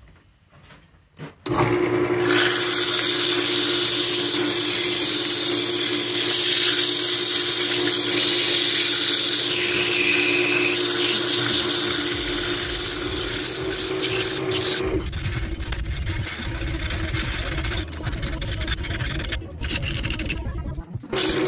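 Wood lathe turning a spalted beech bowl, a steady motor hum under a loud rushing hiss of a tool working the spinning wood. The noise starts suddenly about a second and a half in and drops to a lower, uneven rumble about fifteen seconds in, growing loud again near the end.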